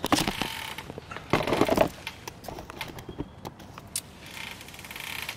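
Handling noise and fabric rustling close to the camera's microphone as it is moved and adjusted, in two loud bursts in the first two seconds and a softer one near the end, with scattered sharp clicks throughout.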